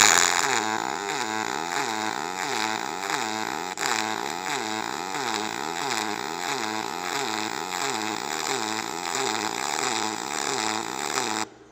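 MIG welding arc on aluminum from an OTC Daihen Welbee in DC wave pulse mode at 1.5 Hz, about 100 amps with 4043 wire: the arc sound swells and falls in a steady rhythm about one and a half times a second, the low-frequency wave pulse that lays a stack-of-dimes bead. It stops suddenly near the end as the arc is broken.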